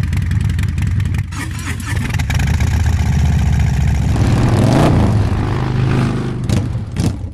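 Harley-Davidson V-twin motorcycle engine running through its exhaust at a lumpy idle. About four and a half seconds in the throttle is blipped once, the pitch rising and falling back.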